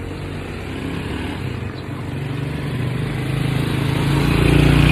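A motor vehicle's engine running steadily, growing louder toward the end as it comes closer.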